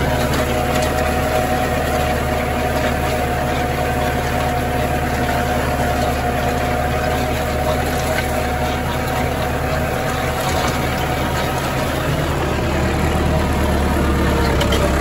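Massey Ferguson tractor engine running steadily while pulling a hay tedder through the field.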